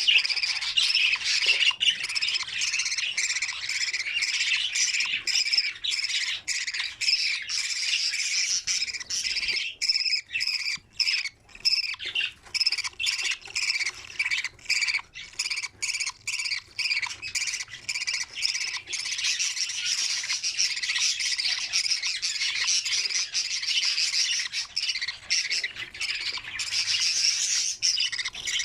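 Budgerigars chirping and squawking in a dense, high-pitched chatter. Around the middle the chatter breaks into quick separate calls with short gaps, then runs continuous again.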